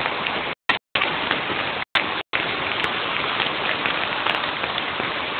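Steady rain falling on a concrete yard, an even hiss of drops. The sound cuts out completely twice, briefly, about half a second and two seconds in.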